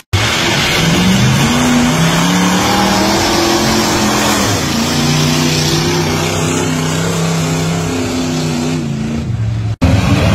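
Mud truck's engine on a lifted, big-tired pickup revving as the truck churns through deep mud. The pitch climbs about a second in, falls back around the middle, then holds steady. The sound cuts out abruptly near the end and another engine comes in.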